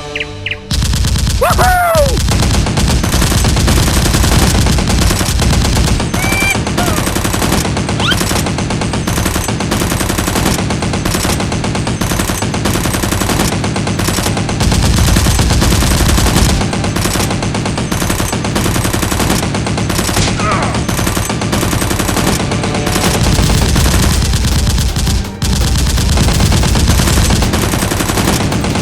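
Sustained rapid automatic gunfire: long unbroken volleys of shots, added as sound effects over a Nerf blaster battle.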